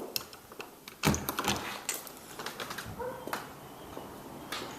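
Patio door being opened, with a clatter of latch clicks and a dull thump about a second in.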